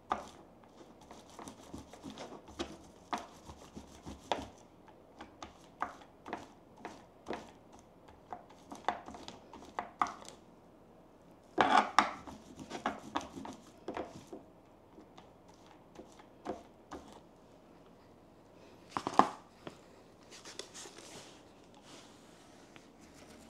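Paint roller being worked back and forth in a plastic paint tray to load it: a run of irregular sticky clicks and scrapes, with louder clusters about halfway and one sharp knock about three-quarters of the way through.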